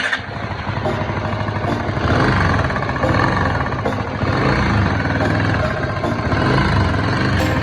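Honda GB250 Clubman's single-cylinder engine running steadily, a fast even pulse of firing strokes, getting a little louder about two seconds in.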